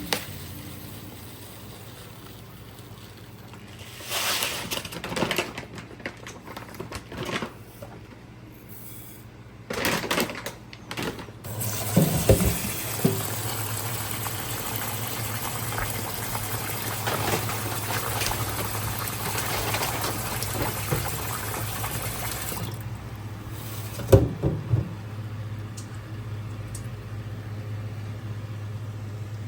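Water running for about ten seconds in the middle, as from a kitchen tap or poured into a pot. Clinks and knocks of pots and utensils come before it, with a sharp knock as it starts and another a little after it stops. A steady low hum sits underneath.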